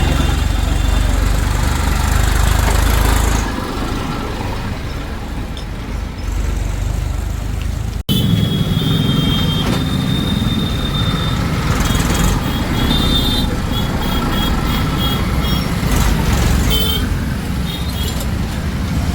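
Diesel engines of heavy machinery (backhoe loader and tractors) running with a steady low rumble. The sound drops suddenly about three and a half seconds in and cuts abruptly about eight seconds in. After the cut the engine rumble resumes, with thin high whining tones coming and going.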